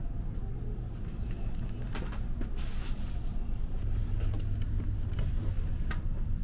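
Steady low rumble inside the car of an E657-series limited express electric train, growing stronger about four seconds in. A few sharp clicks and a short rustle sound over it.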